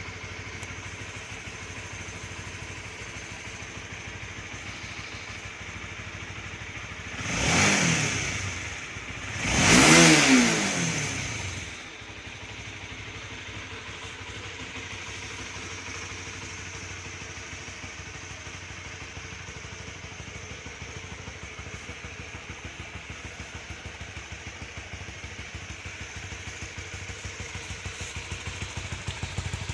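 Honda CB150R's 150cc single-cylinder DOHC engine idling through its stock muffler. It is revved twice, about seven and ten seconds in, the second rev louder and longer, and each time it drops back to a steady idle.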